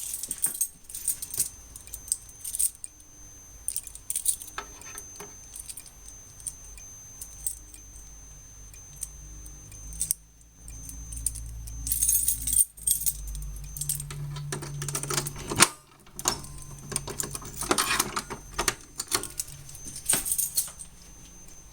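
Irregular bursts of metallic jangling and rattling clicks, with a faint steady high-pitched tone underneath.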